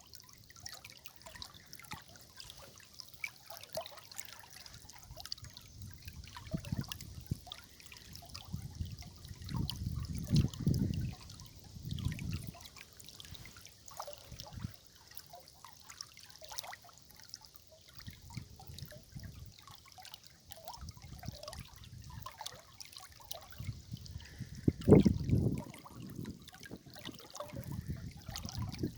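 River water trickling and gurgling, a steady patter of small splashes with irregular deeper gurgles that swell about ten seconds in and again, loudest, about twenty-five seconds in.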